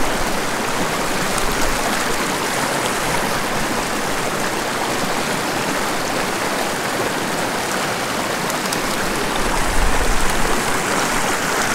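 A shallow mountain creek rushing and splashing over boulders in fast pocket water, a loud, steady sound of whitewater close by.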